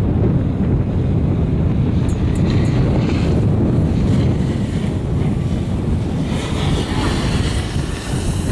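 Wind buffeting the microphone on a moving chairlift: a steady low rumble, with a few faint ticks about two seconds in.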